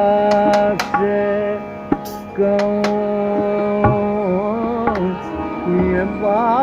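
Background music: an Indian song with a singer holding long wavering notes over a sustained accompaniment, with tabla strokes.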